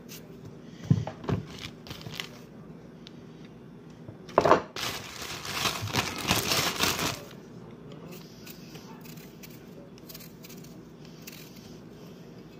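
Kitchen knife peeling a potato: a few short, sharp scraping strokes in the first couple of seconds. About halfway through comes a knock and then a louder noisy rustle lasting about two and a half seconds.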